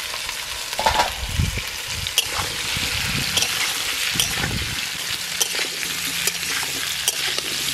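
Raw jackfruit and potato pieces sizzling in hot oil in a kadai, with a spatula clicking and scraping against the pan as they are stirred. A few low thuds come in the first half.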